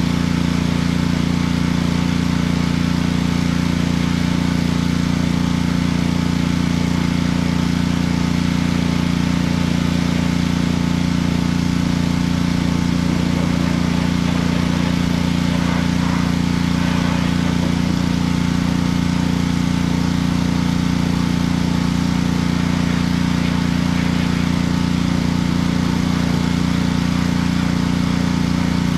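Small petrol engine running steadily at constant speed, most likely a gas pressure washer powering the spray.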